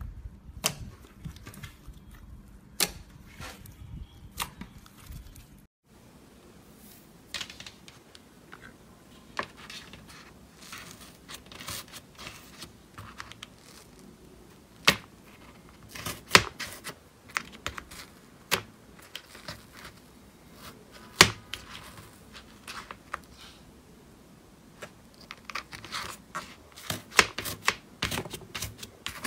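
Fingers squishing and poking slime, making sharp crackling and popping clicks at irregular intervals. It begins with glossy gold slime being pressed. Then, after a brief break, a finger pokes into spongy blocks of slime packed in a plastic compartment box, and the pops come thickest near the end.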